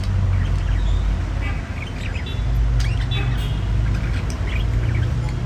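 Budgerigars chattering in quick, scattered chirps and squawks: a male budgie's courtship chatter to a female. A steady low hum sits underneath.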